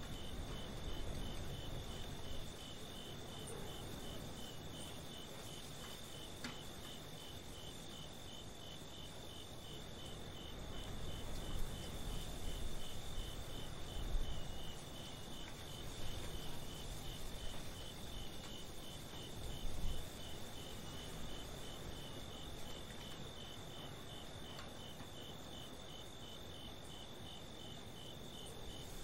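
Crickets chirping at night: one steady high trill alongside a rapid, evenly repeating chirp. A low rumble swells and fades in the middle.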